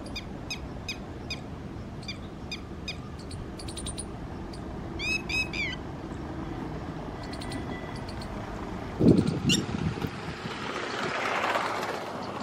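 Red-wattled lapwing calling: a series of sharp, high notes at about two to three a second, then a quick run of ringing notes about five seconds in. Near the end, a low thud and a swelling hiss.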